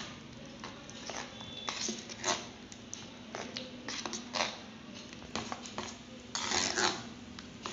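A spoon stirring cake batter in a bowl, with irregular clinks and scrapes against the bowl, busier near the end.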